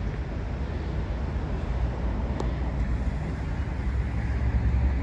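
Steady street traffic noise, a low rumble, with a single sharp click about halfway through.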